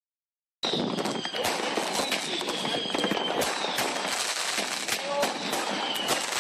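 A 70-shot salute firework cake firing: sharp bangs in quick succession over a dense crackle, starting abruptly about half a second in, with a thin whistle through the first few seconds.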